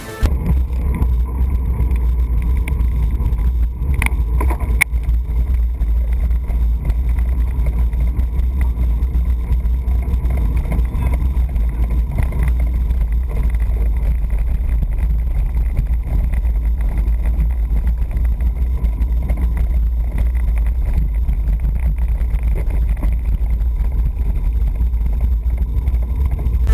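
Wind buffeting the microphone of a bicycle-mounted camera while riding, a loud steady low rumble, with a couple of faint clicks around four seconds in.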